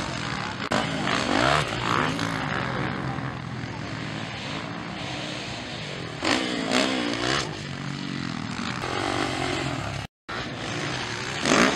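Motocross dirt bike engines revving hard, their pitch rising and falling over and over as the bikes accelerate, jump and pass. The sound cuts out briefly about ten seconds in.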